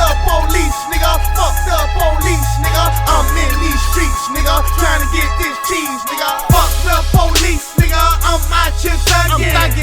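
Hip hop beat: deep, sustained bass notes that drop out for a moment a few times, under held tones and a melodic line.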